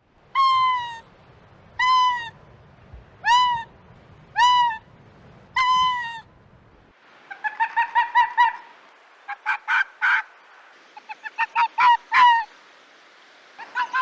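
Arctic fox yelping: five separate high, falling yelps about a second and a half apart, then quick runs of short yapping barks.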